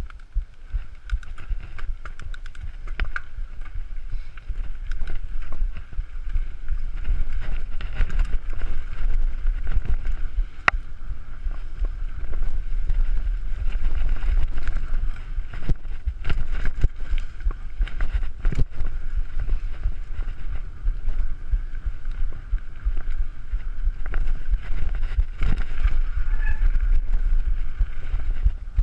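Mountain bike ridden fast down a rough dirt trail: a steady low wind rumble on the microphone, with frequent clicks, knocks and rattles as the bike jolts over the bumpy ground.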